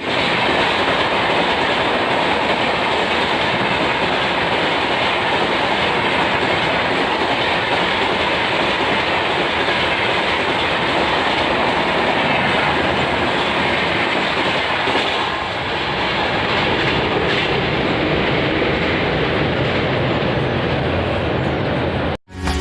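An Indian Railways express of LHB coaches running past at speed: a steady rush of wheel-on-rail noise with clickety-clack, holding level with a brief dip about two-thirds of the way through.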